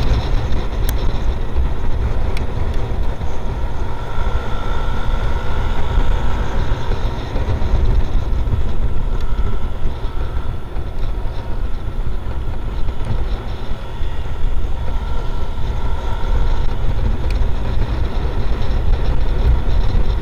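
Steady rush of wind buffeting the microphone while riding a Yamaha NMAX 155 scooter at road speed, with its single-cylinder four-stroke engine running under the wind noise.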